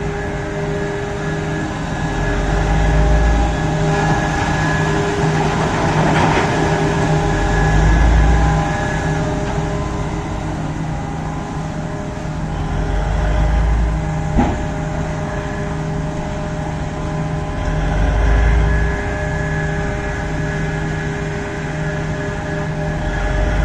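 Komatsu PC4000 hydraulic mining excavator working hard as it digs into poorly blasted solid rock: a steady engine note with deep swells of load about every five seconds. A single sharp knock comes about halfway through.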